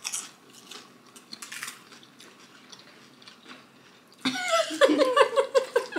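Chewing and crunching as several people bite into loaded tortilla-chip nachos, with a few short crunches in the first couple of seconds. About four seconds in, a voice joins in with a quick run of short sounds, the loudest part.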